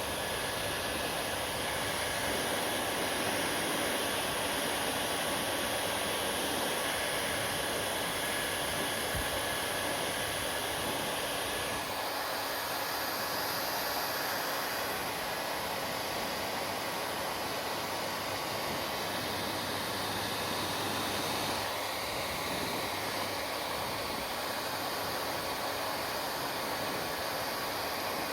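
Hair dryer blowing steadily, an even rushing noise whose tone shifts slightly twice.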